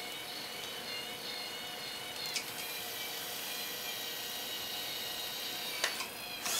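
Small electric gear motors of a scale-model Talos missile launcher running as the automatic loader pushes missiles onto the launcher rails: a steady whine of several tones. Its pitch changes with a click about two and a half seconds in, and a few more clicks come near the end.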